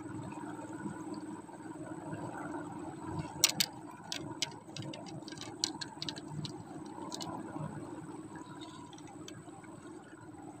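A steady low hum with a run of sharp, irregular clicks from about a third of the way in until past the middle, the first two the loudest.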